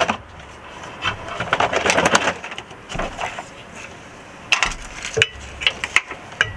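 Scraping, rattling and clinking of metal car parts being handled, with several sharp clicks and knocks from about four and a half seconds in.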